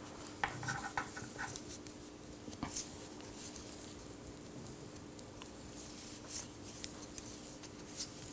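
Wooden knitting needles tapping and yarn rustling as stitches are worked by hand: faint, scattered light clicks, a few of them closer together in the first second and a half, over a faint steady hum.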